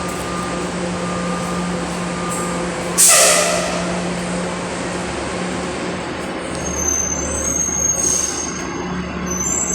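City bus idling with a steady hum, and a loud air-brake hiss about three seconds in that fades over about a second. A deeper engine rumble comes in past the middle.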